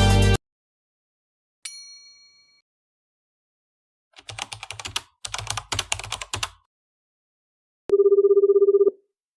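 A string of sound effects: music cuts off just after the start, then a single bell-like ding rings and fades. Two bursts of computer-keyboard typing follow, and near the end a telephone rings once for about a second with a fast fluttering tone.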